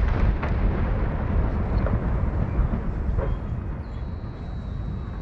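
The low rolling rumble and echo of a cannon shot carrying across the water, fading slowly, with a few faint cracks in it.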